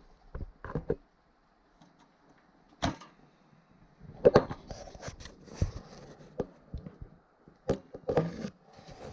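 Multi-fuel tent stove being handled while it is lit: a string of irregular knocks and clunks of wood and metal, with faint rustling in between.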